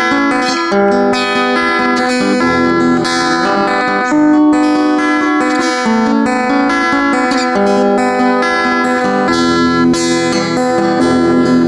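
Solo acoustic guitar playing the instrumental introduction to a song, chords ringing steadily and changing every second or so, with no singing yet.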